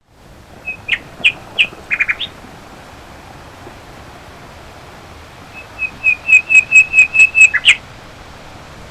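A bird calling in two bouts of short, high chirps: a few notes about a second in, then a quicker run of about nine evenly spaced notes that ends on a falling note near the end.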